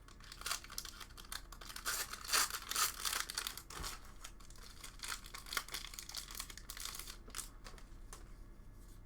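A Magic: The Gathering booster pack's plastic wrapper being torn open and crinkled in the hands, loudest about two to three seconds in, then dying down to lighter crinkling near the end.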